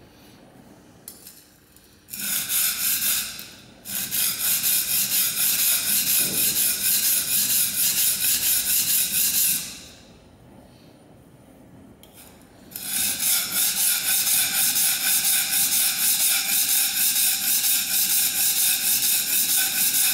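Steel plane iron from a Record No. 4 plane rubbed back and forth on an oiled Norton Crystolon silicon-carbide stone: a rasping scrape in quick, even strokes, about three a second. It comes in three spells: a short one about two seconds in, a long one that stops about ten seconds in, and another that starts near thirteen seconds.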